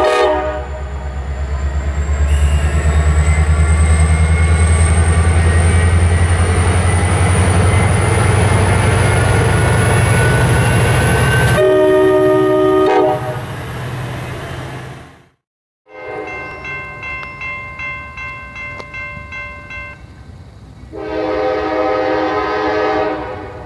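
Norfolk Southern freight train passing: the diesel locomotives' low rumble with a slowly rising high whine, and the multi-chime air horn sounding at the start and again after about 12 seconds. After a brief dropout, quieter steady tones with an even pulse give way to another horn blast near the end.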